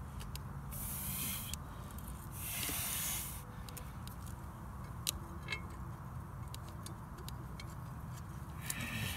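Hand-work on a pump during assembly: two short hissing rustles in the first few seconds, then a few faint light clicks, over a steady low rumble.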